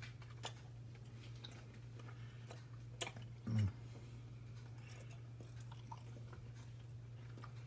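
A man chewing a bite of pizza, with small mouth clicks and a short low "mm" about three and a half seconds in. A steady low hum runs underneath.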